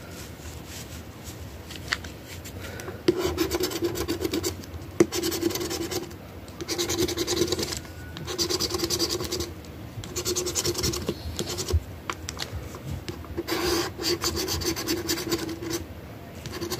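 Scratching the coating off an Ohio Lottery $10 Ultimate Cash scratch-off ticket: fast scraping strokes in repeated bursts of a second or so with short pauses between, louder from about three seconds in.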